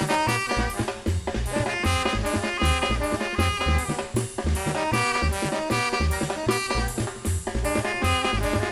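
Papayera brass band playing live: brass melody over a steady drum beat of about two thumps a second.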